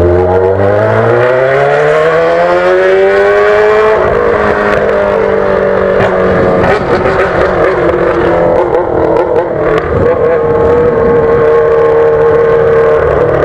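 Yamaha XJ6's inline-four engine through a straight open exhaust pipe, pulling hard and rising in pitch for about four seconds as the bike accelerates. It then runs loud on a steadier note with some uneven throttle, settling to a constant pitch near the end.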